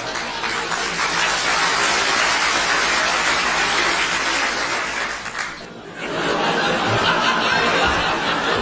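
A crowd laughing and chattering, many voices at once, dropping away briefly a little before six seconds in and then rising again.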